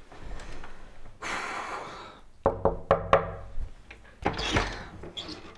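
Knuckles knocking on a wooden bedroom door: a quick run of about five knocks about two and a half seconds in, after a short breathy hiss.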